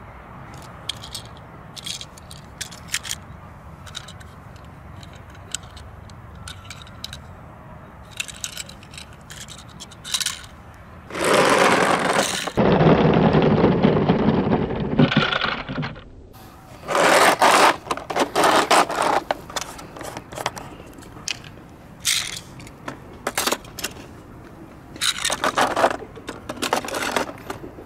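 Tomica die-cast toy cars and a clear plastic toy vehicle with plastic wheels rolling and scraping across a rough pebbled concrete ledge, with small clicks as the metal cars are handled. A long loud rolling scrape comes a little before the middle, and shorter scrapes follow later as a car is pushed into the plastic vehicle.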